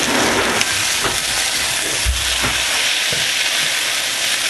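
Grated-potato omelette sizzling steadily in hot coconut oil in a frying pan, with a few soft spatula knocks against the pan as it is turned and a low thump about two seconds in.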